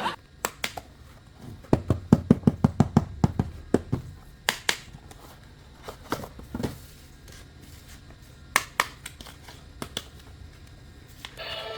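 Hands handling plastic toys and their packaging: a quick run of clicks and knocks about two to four seconds in, then scattered single clicks and taps.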